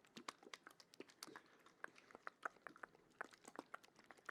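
Soft, wet mouth sounds: a quick, irregular run of clicks and smacks, several a second.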